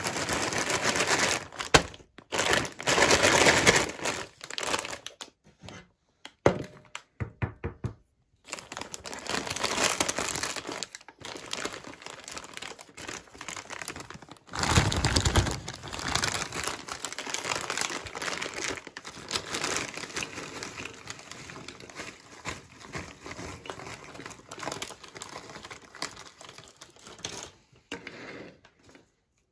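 Foil snack bag crinkling as it is handled and opened, then onion-ring snacks and ridged potato chips being shaken out of it onto a plate, with a loud rustling rush about halfway through.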